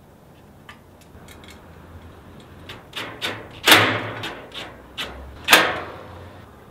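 Metal fire pit panels and parts knocking and clanking as they are fitted together, a run of light clicks and taps, then two loud metallic bangs a bit under two seconds apart.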